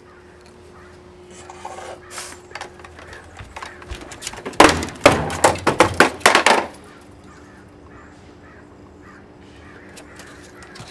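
Light knocks, then about two seconds of loud clattering and thumping about halfway through: a plastic Tonka toy truck tumbling down wooden deck steps, with a dog's paws landing on the stairs.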